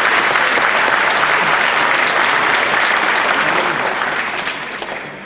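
Audience applauding, then dying away from about four seconds in.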